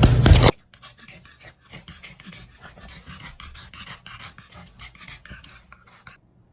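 A loud rumbling noise with a low hum cuts off abruptly half a second in. A dog then pants softly and quickly, several breaths a second, for about five seconds.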